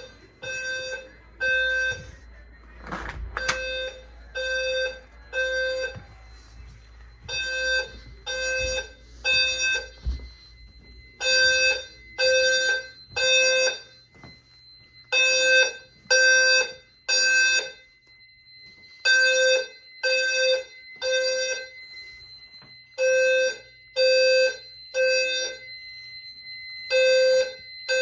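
Fire alarm sounding the temporal-three evacuation pattern: three short pitched blasts, a pause, then three more, repeating steadily. A faint steady high tone joins a few seconds in, and there is a single knock near the start.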